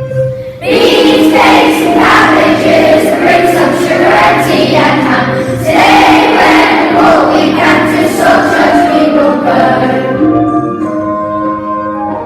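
A choir of voices singing together over instrumental backing music, coming in loudly about a second in and easing off near the end.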